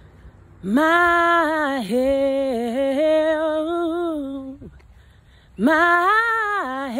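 A woman singing gospel unaccompanied, holding long notes that bend and dip in pitch, in two phrases with a short breath between them about two-thirds of the way in.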